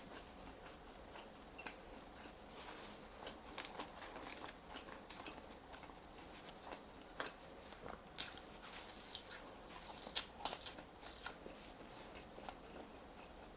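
Close-miked eating of french fries: bites and chewing with many short crunchy clicks, busiest in the second half.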